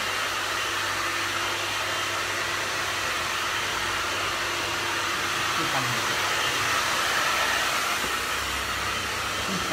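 A hair dryer blowing steadily, a continuous airy rush over a low motor hum, growing a little louder late on.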